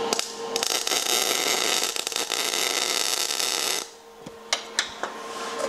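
MIG welding arc crackling steadily for about three seconds as a short tack weld goes onto steel plate, then cutting off sharply about four seconds in. A steady hum is left once the arc stops.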